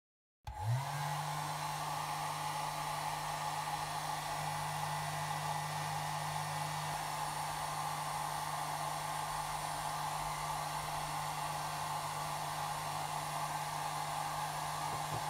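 Compact handheld hair dryer switching on about half a second in, its motor quickly rising in pitch, then blowing steadily on a vinyl phone skin to warm it.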